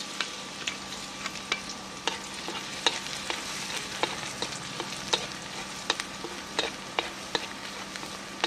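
Chopped garlic sizzling in hot soybean oil in a metal wok, a steady hiss with frequent sharp ticks and pops as a wooden spatula stirs it.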